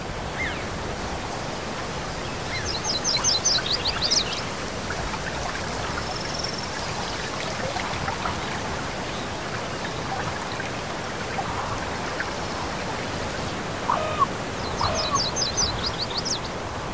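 Steady rushing of a mountain stream, with a songbird's quick run of high, falling notes twice, about three seconds in and again near the end, and a couple of short lower calls shortly before the second run.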